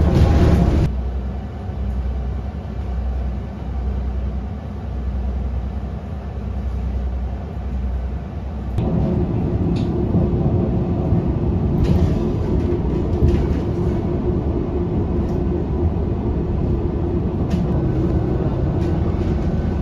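Cabin noise aboard a moving electric city bus: a steady low rumble with a few light rattles and clicks, getting louder and fuller about nine seconds in. Background music ends about a second in.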